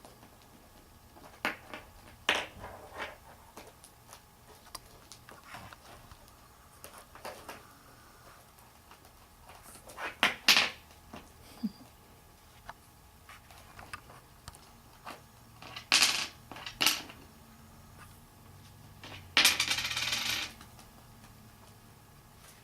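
Cockatiels playing, making scattered clicks, taps and light clinking clatter, with a denser rattle lasting about a second near the end.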